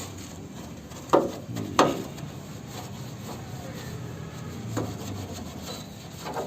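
Rubbing and scraping over a steady low hum, with two sharp knocks a little over a second in, about half a second apart, and another knock near five seconds.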